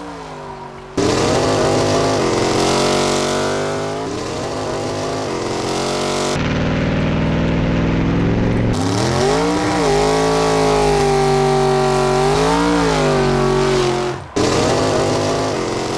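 Off-road VW Bug engine revving up and down in several spliced stretches, with abrupt cuts between them.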